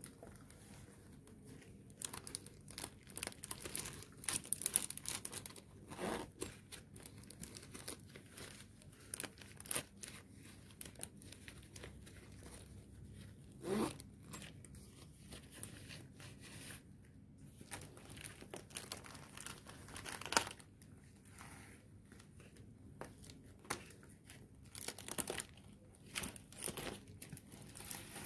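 Clear plastic packaging of a makeup brush set crinkling and rustling as gloved hands handle it, in irregular bursts with small taps and clicks.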